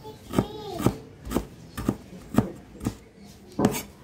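A steady series of sharp taps or knocks, about two a second, with a child's voice briefly in the first second.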